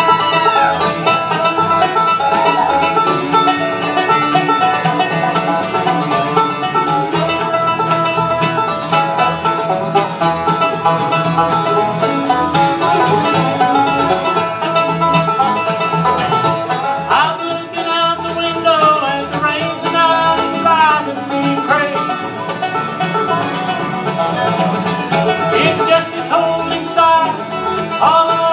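Live bluegrass band playing: banjo rolls over acoustic guitars, fiddle and mandolin, with a steady low beat.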